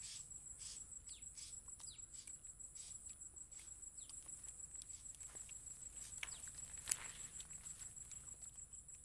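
Insects chirping in a steady, high, unbroken trill, with faint scattered clicks and one sharper click about seven seconds in.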